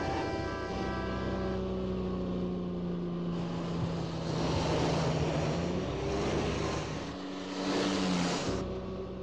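Sports car engines driving at speed, heard as a steady engine drone with road and wind noise. The engine note shifts partway through, and the road noise swells twice.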